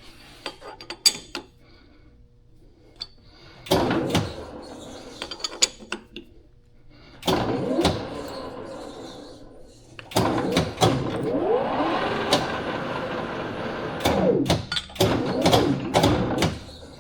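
Metal lathe run in short bursts while power-tapping a thread, its motor speeding up and slowing down several times, with clicks and knocks from the tap and chuck. The cheap tap is binding and does not want to cut.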